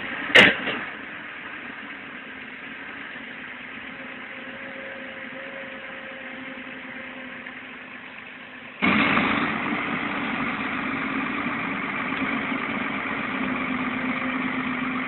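Hyundai excavators' diesel engines running steadily, with a sharp knock just after the start. About nine seconds in the engine sound jumps suddenly louder and stays steady.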